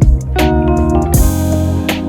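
Background music: sustained chords over a drum beat, with a cymbal wash a little after a second in.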